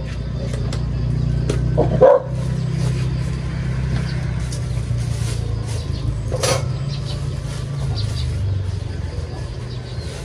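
A dog barks about two seconds in and again about six and a half seconds in, over a steady low motor hum. Thin plastic bags rustle in between.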